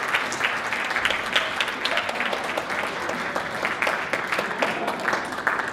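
Audience applauding: a dense, steady patter of many hands clapping, which begins to tail off right at the end.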